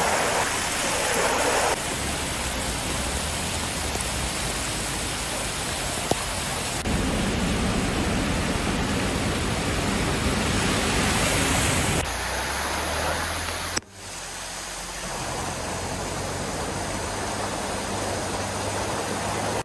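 Rushing floodwater and heavy rain, a steady wash of noise, with cars driving through the deep water on the street. The noise shifts abruptly several times, the biggest break coming about two-thirds of the way in.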